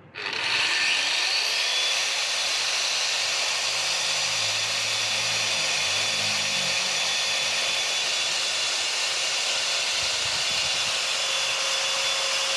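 Handheld electric wall chaser (wall-cutting saw) switched on: the motor spins up with a rising whine over the first couple of seconds, then runs at a steady high whine at full speed.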